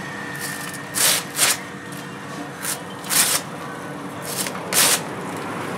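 Steel knife blade scraping in short swishes, coming roughly in pairs every one and a half to two seconds, like strokes drawn back and forth along the edge.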